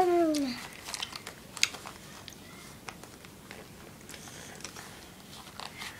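A young child's brief drawn-out vocal sound, falling in pitch, at the very start. Then quiet, scattered small clicking mouth sounds of a toddler chewing food.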